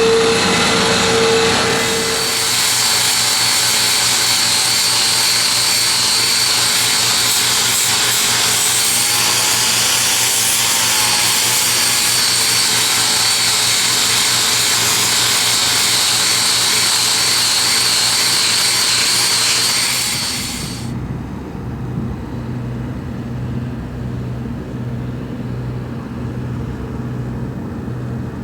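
Angle grinder working steel, a loud steady grinding hiss with a high whine that wavers in pitch as it is pressed into the work. It cuts off sharply about two-thirds of the way in, leaving a steady low engine hum.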